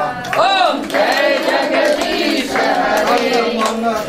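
A group of women singing together, with one voice swooping sharply up and down about half a second in.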